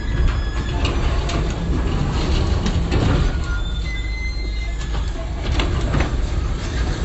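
Vehicle hauling a load of scrap metal on the move: a steady low rumble with frequent metallic rattles and short high squeaks.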